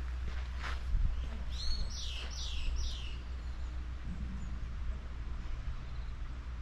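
A songbird calling: four quick whistled notes, each sliding downward, about two seconds in. Footsteps on a gravel path near the start, over a steady low rumble.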